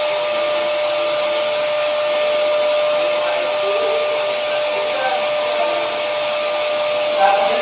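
TOTAL electric paint sprayer running steadily while spraying: its floor turbine blows air through the hose to the gun, making a steady whine over a rushing hiss.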